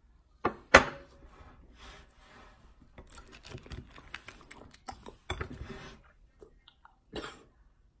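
Close-miked eating of crispy Popeyes fried chicken: two sharp crunches just under a second in, then a run of crackly chewing and crunching of the breading through the middle, and one more crunch near the end.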